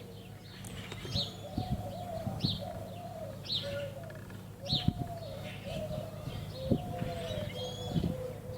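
Birds calling outdoors: a steady run of low, repeated cooing notes, with a higher chirp from another bird about once a second.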